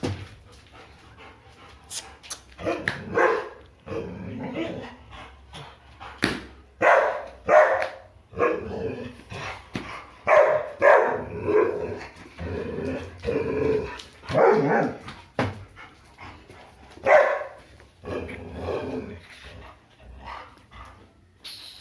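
A pet dog 'talking': a long run of short, pitched, voice-like calls one after another, mixing barks, whines and grumbling growls.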